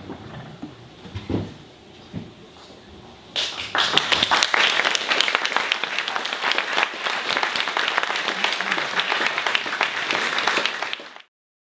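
Audience applauding: a few soft thumps in the quiet, then dense clapping that starts about three seconds in and cuts off suddenly near the end.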